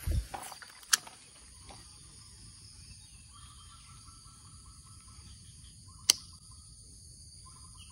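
Steady high-pitched insect chirring, joined by a lower chirring trill for a couple of seconds midway. A low thump at the very start and two sharp clicks, about a second in and about six seconds in.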